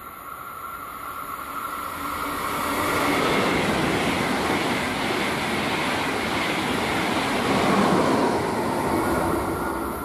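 An ICE 2 high-speed electric train (DB class 402) passes at speed on the rails. The running noise of its wheels builds as it approaches, holds loud for several seconds as the coaches go by, and fades near the end.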